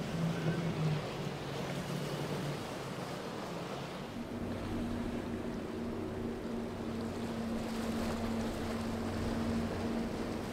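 Outboard-powered center-console boats running at speed through choppy water: a steady engine drone over rushing and slapping water, with wind on the microphone. About four seconds in the engine note changes to a different, steadier hum as another boat with twin outboards takes over.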